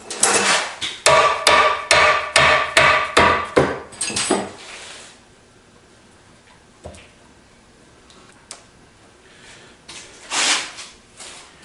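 A hammer drives a punch against the steel nut on a lathe countershaft pulley's bearing to loosen it. It lands about ten quick, ringing metal-on-metal blows over roughly four seconds, then a couple of light clicks and a brief scrape near the end.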